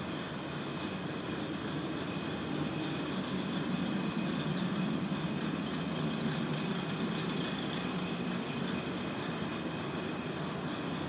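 Kominato Railway KiHa 200 diesel railcar's engine idling steadily while the car stands, heard as a low, even drone inside the passenger cabin.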